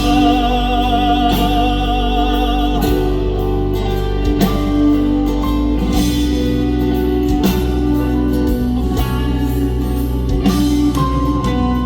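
Live band music led by guitar. A held sung note with vibrato ends about three seconds in, then the instrumental passage goes on with sustained chords over bass and drums.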